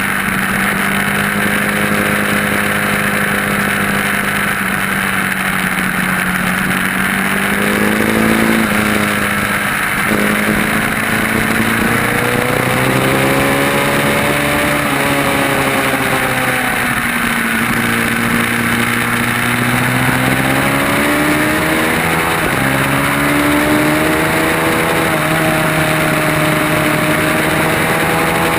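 Motorcycle engine at racing speed on a circuit. Its pitch climbs through the gears with sudden drops at each shift, about eight, ten and twenty-two seconds in, and falls away under braking in between, over a steady rush of wind.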